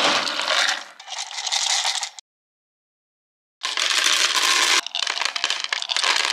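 Dry dog kibble rattling and scraping as a small jar is scooped through it in a plastic storage bin, then clattering as it is poured into a feeding bowl. The sound cuts out completely for about a second and a half midway, then resumes.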